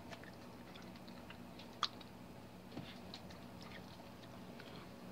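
Corgi mother chewing away the amniotic membranes from a newborn pup: faint, irregular chewing clicks, with one sharper click about two seconds in.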